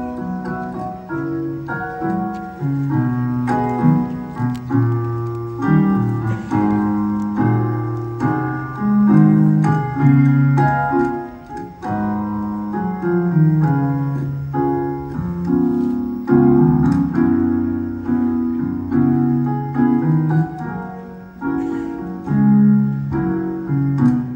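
Piano music for a dance routine played over a hall's loudspeakers: a continuous flowing run of notes and chords, with no singing.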